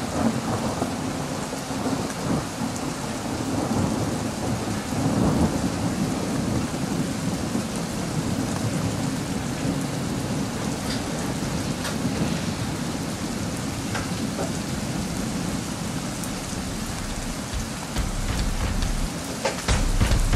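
Heavy rain pouring steadily in a thunderstorm, with thunder rumbling low underneath, swelling about five seconds in. A deeper rumble grows louder near the end.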